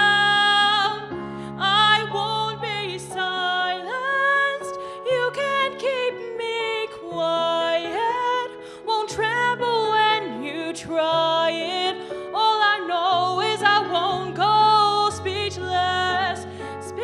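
A young woman singing solo into a microphone, held and gliding vocal lines, over an instrumental accompaniment of long held bass notes.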